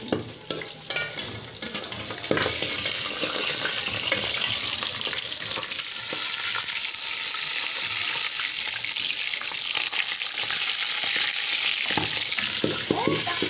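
Boneless milkfish fillets frying in hot oil in a wok: a steady sizzle with scattered spattering pops, the fish 'fighting back' in the oil. The sizzle gets louder about six seconds in.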